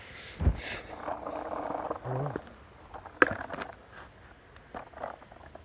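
Skateboard on a hard floor: a low thump as the board drops, its wheels rolling for a second or two, then a sharp clack of the board and a few lighter knocks near the end.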